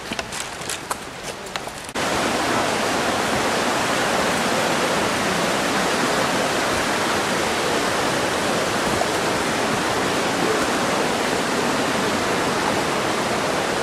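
Light rustling and crunching of footsteps through forest undergrowth, then about two seconds in an abrupt change to a loud, steady rushing like a nearby stream or small waterfall.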